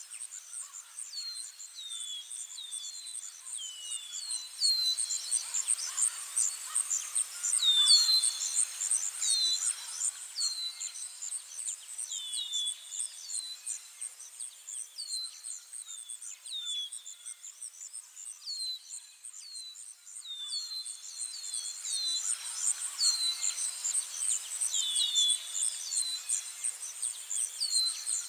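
Outdoor nature ambience: a steady, high, pulsing insect trill like crickets, with many short, downward-sweeping bird chirps repeating every second or so.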